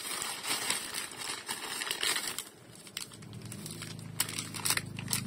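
Plastic courier mailer pouches crinkling and rustling as they are handled and opened by hand, with sharp crackles. A low steady hum comes in a little past the middle.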